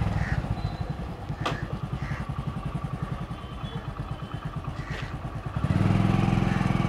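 Motorcycle engine idling with an even low putter, with two sharp clicks along the way; about six seconds in the throttle is opened briefly and the engine runs louder before settling again.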